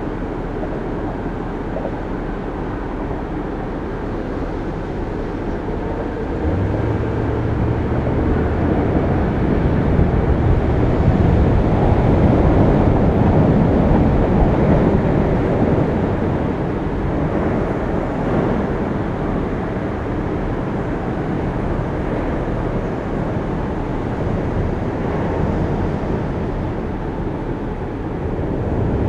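Lincoln Mark VIII's 4.6-litre V8, heard from outside on the hood: a steady low rumble with the car stopped, then about six and a half seconds in the engine note steps up as the car pulls away. It builds to its loudest around twelve to fourteen seconds, then settles to a steady driving sound with road and wind noise.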